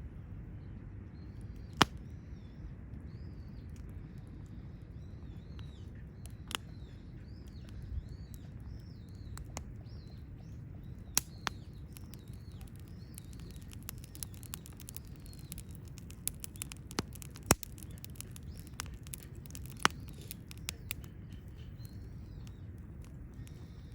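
Wood campfire burning with a low steady rush and a handful of sharp crackling pops every few seconds. A bird chirps repeatedly in the background, a quick run of short calls through the first half and again near the end.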